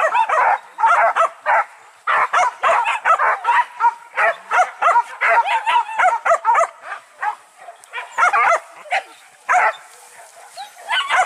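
A pack of hunting dogs barking and yelping on a wild boar hunt. Many short barks overlap, several a second, with brief lulls.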